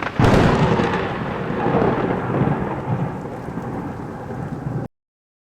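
Thunderclap over rain: a sudden crack just after the start, then a rumble over steady rain that slowly fades and cuts off abruptly near the end.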